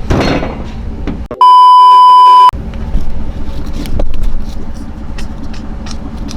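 A loud censor bleep, a steady high beep tone of about a second, cuts in about a second and a half in and blanks out everything else. Around it, a car's steady low running rumble with a few scattered knocks.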